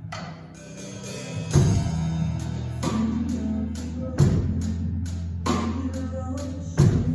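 Acoustic drum kit played along to a recorded worship-band backing track in an instrumental passage: a steady beat of smaller strokes, with heavy cymbal-and-drum accents about every two and a half seconds, over sustained low notes.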